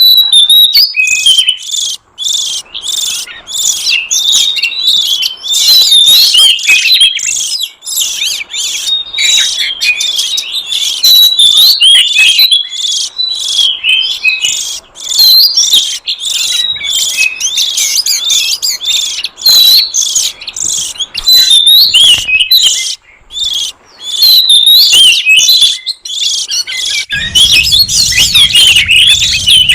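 Oriental magpie-robin (kacer) singing loudly: a rapid, nearly unbroken string of varied chirps and whistled notes, with only a few brief pauses.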